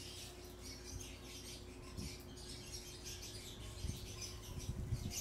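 Faint birds chirping in the background, with a few soft clicks from a bicycle chain and crank being turned by hand near the end.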